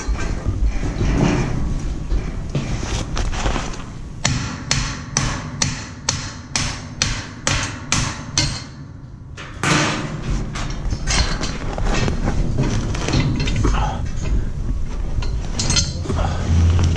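A run of about a dozen evenly spaced hammer blows on metal scaffolding, roughly two and a half a second, in the middle of the stretch. Irregular knocking and clanking of scaffold parts comes before and after.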